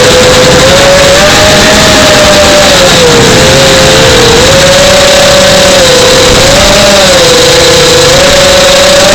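Model airplane's motor and propeller, very loud as heard from a camera carried on board, with a rushing hiss of air; its steady pitch dips and rises every second or two with the throttle.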